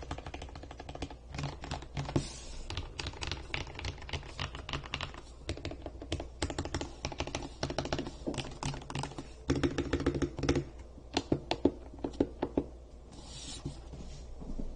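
Maxfit 67 mechanical keyboard, modded with a layer of PE foam, the Tempest mod and lubed, Holee-modded stabilizers, being typed on: a fast, uneven stream of key presses with quicker flurries now and then.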